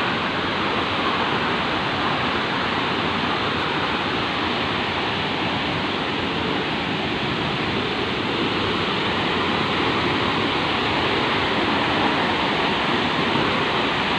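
A waterfall pouring: a steady, dense rush of falling water, getting slightly louder near the end.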